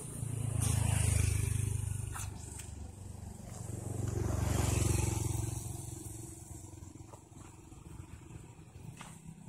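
Two road vehicles passing close by, one after the other: a low rumble swells and fades about a second in, then again around four to five seconds in, leaving a fainter outdoor background.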